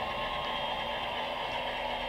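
Loksound 5 sound decoder in a Heljan Kestrel model locomotive, playing a recorded diesel engine running steadily through the model's small speaker while the model moves slowly along the track.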